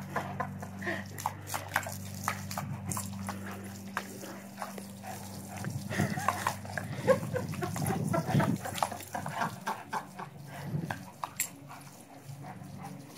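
A German shepherd snapping its jaws at a spray of hose water: a run of short sharp snaps with heavy grunting breaths, busiest and loudest from about six to nine seconds in.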